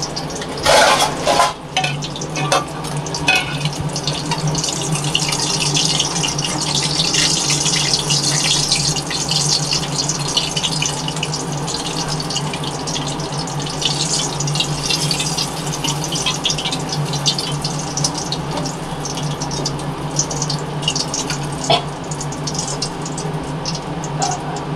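Hot oil crackling and sizzling around quail frying in a steel kadai, with a steel ladle knocking and scraping against the pan as pieces are lifted out, the sharpest knocks about a second in. The sizzle has eased, the cook's sign that the quail are cooked through. A steady low hum runs underneath.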